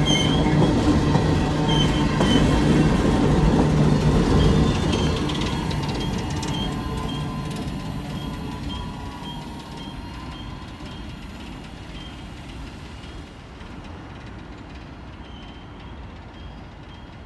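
Freight train cars rolling past loudly, then the sound fades steadily from about five seconds in as the train moves away, leaving a low rumble.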